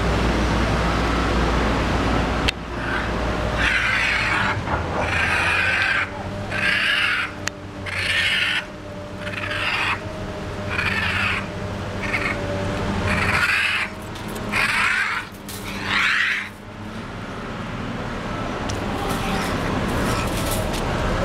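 A series of about nine harsh animal calls, evenly spaced over some twelve seconds, over a faint steady hum. A steady low rumble stops about two and a half seconds in.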